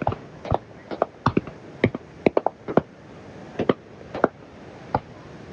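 Fireworks bursting: a string of sharp bangs and cracks at irregular intervals, about ten in all.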